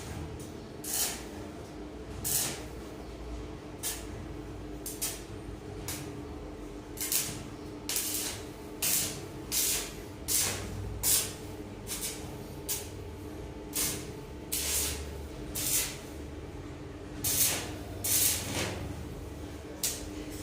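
Welding in short bursts: about one brief hissing crackle a second at uneven spacing, over a steady electrical hum.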